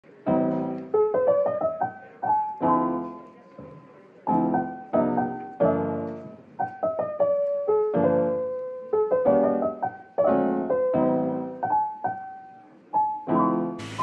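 Background piano music: a light melody of single notes and chords, each ringing and fading. Just before the end the piano stops and a steady hiss takes over.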